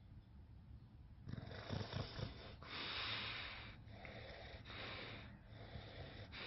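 Bulldog snoring in its sleep. After about a second of quiet, a breath comes with a few low rattling pulses, followed by a run of hissing breaths each about a second long.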